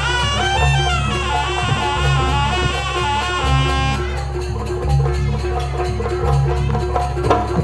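Live Javanese traditional dance music from a gamelan-style ensemble: a wavering high melody with bending notes over short repeated metallic notes and regular deep gong pulses. The melody drops out about four seconds in, leaving the percussion with sharp drum strokes.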